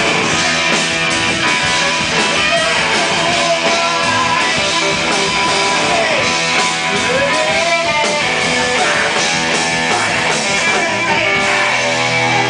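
Punk rock band playing live and loud, the electric guitar to the fore.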